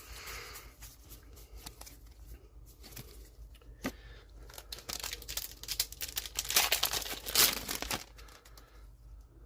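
Trading-card booster pack wrapper being torn open and crinkled in the hands, loudest about five to eight seconds in. A few light ticks and rustles come before it.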